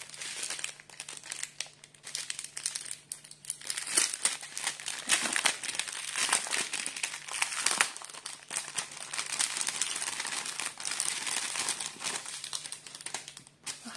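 Clear plastic packaging crinkling and rustling irregularly as it is unwrapped by hand from a strip of small sealed bags of diamond-painting rhinestones.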